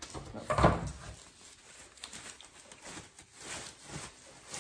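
Cardboard box packaging and a plastic-wrapped chalkboard being handled: a thump about half a second in, then light, scattered rustling.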